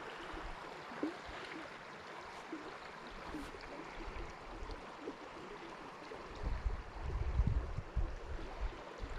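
Mountain creek flowing, a steady rush of water. A low rumble comes and goes for about two seconds near the end.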